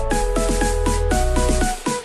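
Electronic background music: synthesized melody over a steady bass and beat, with a brief drop-out near the end.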